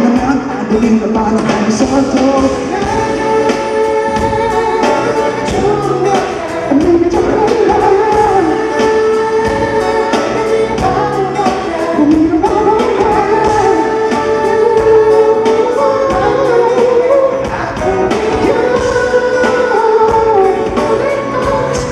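Live pop song performed on stage: singing over a band with a steady beat.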